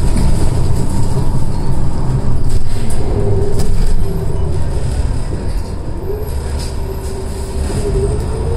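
City bus driving, heard from inside the cabin: a steady low rumble with a drivetrain whine that holds level, dips, then rises in pitch near the end as the bus picks up speed. The rumble is louder in the first half and eases after about four seconds.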